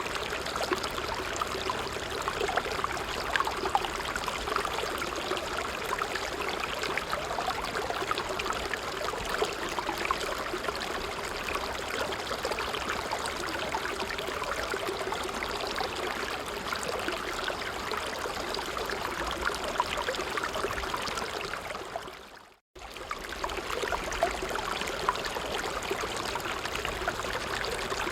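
A stream running steadily over stones, a continuous babbling and trickling of water. About three quarters of the way through, it fades out for a moment and then returns abruptly.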